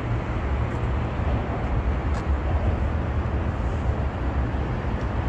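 Strong wind buffeting the microphone as a gusty low rumble, over the steady roar of city traffic.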